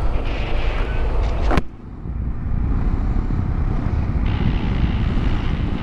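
Motorcycle on the move: a steady low rumble of engine and wind buffeting the microphone, starting after an abrupt cut about a second and a half in.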